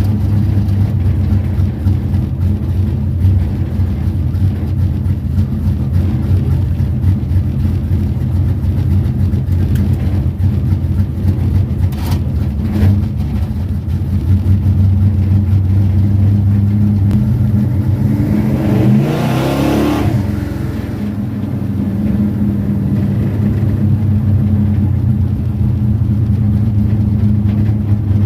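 Carbureted race car engine idling steadily, with one short throttle blip about two-thirds of the way in that sends the pitch up and back down.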